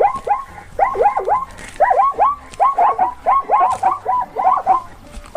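Zebra calling: a rapid series of short, yelping barks, about three a second.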